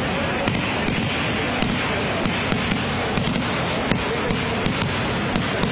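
Kerala temple-festival fireworks going off in a dense, unbroken crackle, with sharper loud cracks standing out irregularly, a few each second.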